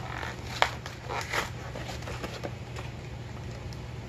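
Hands working open a packed shipping box: a sharp click about half a second in, then rustling and a few light taps, over a steady low hum.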